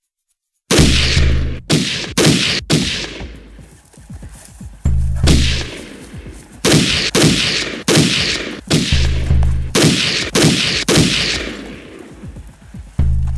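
Gunfire: a long run of loud single shots, starting about a second in and coming at irregular intervals of roughly half a second to a second, each with a ringing tail, some with a deep thud beneath.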